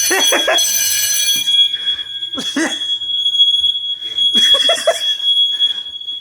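A fire alarm device's electronic sounder holding one steady, high-pitched tone without a break, with short bursts of voices over it.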